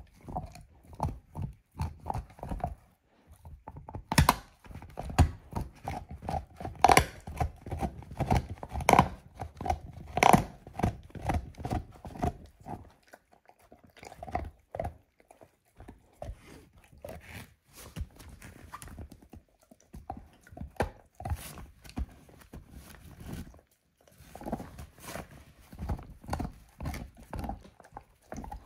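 A dog gnawing a lamb bone: irregular runs of crunches and clicks of teeth on bone, broken by short pauses, the loudest crunching in the first half.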